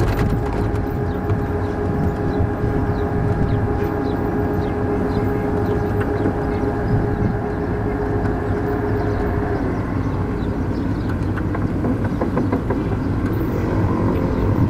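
Armored military vehicle running on the move, heard from its open gun turret: a deep engine and drivetrain rumble with a steady whine that drops away about two-thirds of the way through, and a rising whine near the end.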